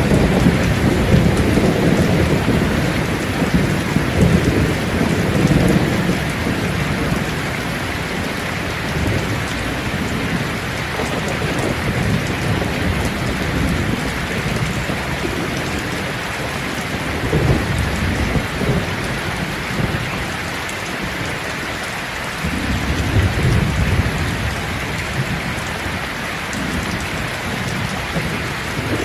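Steady rain falling on leaves, with low rumbles of thunder swelling in the first few seconds and again about three-quarters of the way through.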